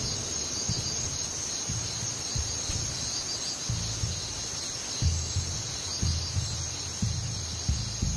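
Night-time chorus of crickets, a steady high-pitched trilling drone, over low, irregular thumping pulses.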